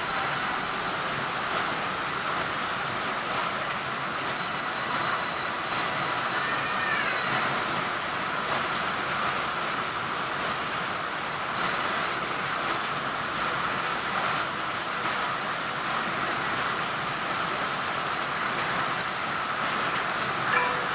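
Heavy rain falling steadily, an even hiss with no thunder heard. A faint short whistle-like chirp sounds a few seconds in and again near the end.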